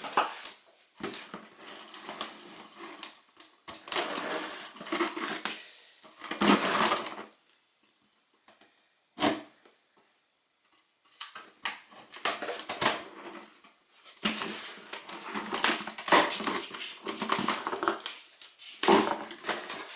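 Parts packaging being handled and opened: irregular rustling and crinkling, with a lull of a few seconds in the middle broken by one short sharp sound.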